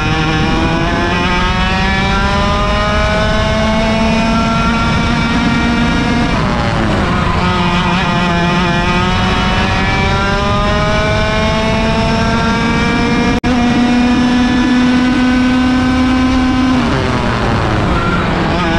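A 100cc two-stroke kart engine heard onboard at race pace. It revs up in long rising climbs, and the pitch falls sharply twice, about six and seventeen seconds in, as the driver lifts for corners, before it climbs again.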